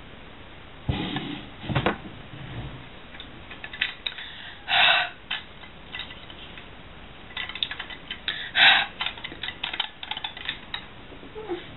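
Handling noise from compact binoculars turned over in the hands. There is a thump about a second in, then scattered light clicks and knocks, with a busier run of clicks near the end. Twice a short rush of noise cuts in, the louder one about three quarters of the way through.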